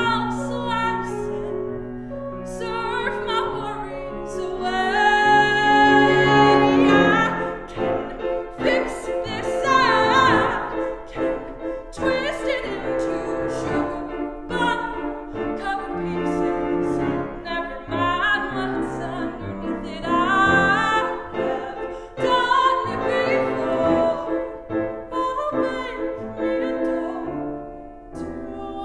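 A woman singing a musical-theatre song solo, accompanied on grand piano, in phrases with a wavering pitch held on the long notes.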